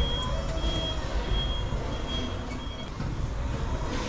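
Forklift backup alarm beeping at one steady high pitch, about once every three-quarters of a second, as the forklift reverses. The beeps stop about three seconds in, over a low rumble.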